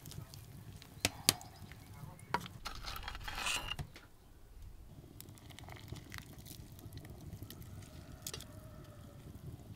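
A wooden spoon stirring soup in a cast-iron pot, with a few sharp knocks against the pot in the first couple of seconds and a short stretch of scraping. Quieter utensil handling and an occasional clink follow.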